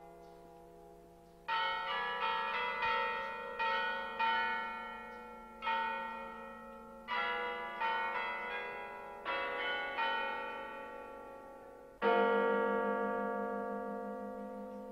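Church bells ringing a sequence of struck notes at different pitches, each ringing on and fading, beginning about a second and a half in; about twelve seconds in a louder, deeper bell is struck and rings out slowly.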